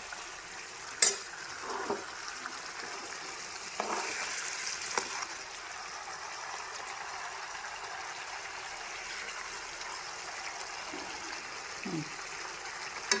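Pork frying in a pan with a steady sizzle, broken by a few clicks and scrapes of a utensil stirring it.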